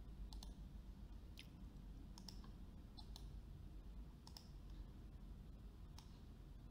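Faint computer mouse button clicks, scattered and irregular, several coming in quick pairs, over a low steady hum.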